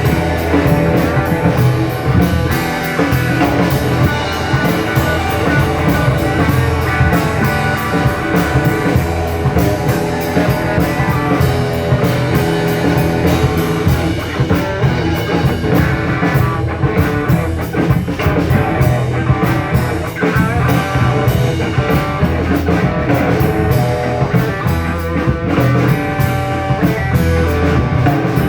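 Rock band playing steadily, with guitar and drum kit.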